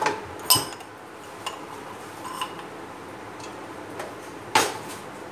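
A few sharp metallic clinks and knocks from a nonstick cooking pot being handled on an induction cooktop, irregularly spaced, the loudest about half a second in and again near the end.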